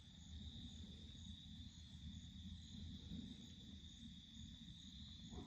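Faint insects singing: one steady high buzz, with a second, higher chirp repeating about twice a second, over a low rumble.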